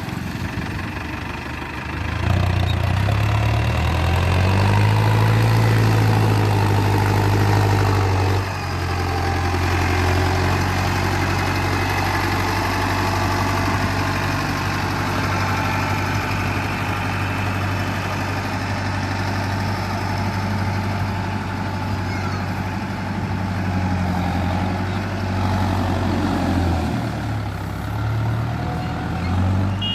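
Mahindra Arjun Novo 605 DI-i tractor's diesel engine running, revving up about two seconds in and dropping back about eight seconds in, then running steadily with a short dip near the end.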